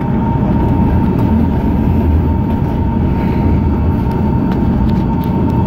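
Metro train running, heard from inside the car: a steady rumble of wheels on the rails with a steady high whine over it and a few faint clicks.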